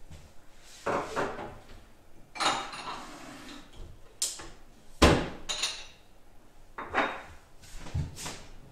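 Kitchen handling noises: about six separate knocks and clatters spread over several seconds, the loudest a sharp knock about five seconds in.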